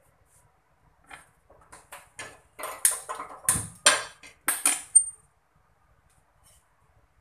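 Stainless-steel kitchenware clattering and clinking as a steel plate and utensils are handled: a quick run of sharp clanks over about four seconds, the last one ringing briefly.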